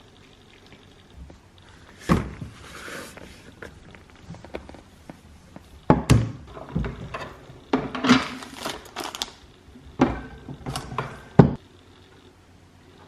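Household knocks and clatter: thunks in a small room in four bunches, about two, six, eight and ten seconds in. The sharpest thunk comes near the end.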